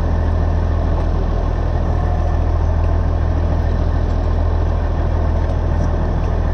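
A boat's engine running steadily, a constant low hum with no change in speed.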